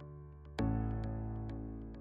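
Background music: a sustained keyboard chord struck about half a second in and slowly fading, with light ticking percussion.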